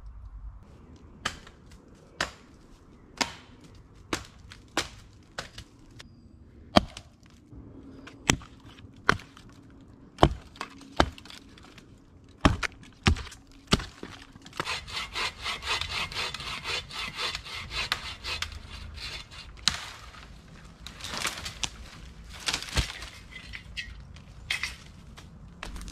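Hatchet chopping limbs off a downed pine trunk in sharp single strikes, about one a second. Then a hand saw cuts through a pine pole in quick, dense strokes, pausing and starting again near the end.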